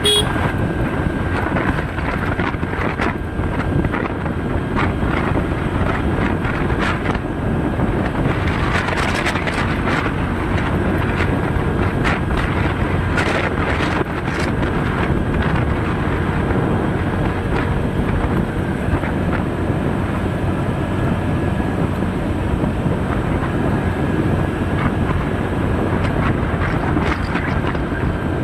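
Steady rumbling noise of a moving vehicle, with wind buffeting the microphone and faint steady tones running through it.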